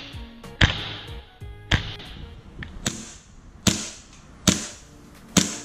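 WE Little Bird green gas blowback airsoft pistol firing single semi-automatic shots, about six in all, roughly a second apart, each a sharp crack as the slide cycles. Background music plays faintly underneath.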